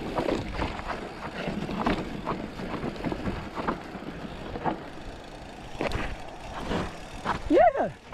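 Mountain bike rolling fast down a dirt and rock trail: a steady rushing of tyres and air, broken by sharp knocks and rattles as the bike hits bumps and rocks. Near the end comes a brief pitched squeal that rises and falls, the loudest sound.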